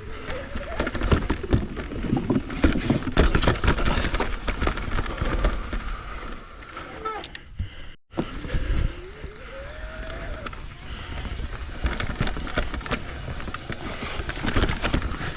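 Commencal full-suspension mountain bike ridden over rough trail: tyres rolling over dirt and rock with frequent knocks and rattles from the bike, briefly cut off about eight seconds in.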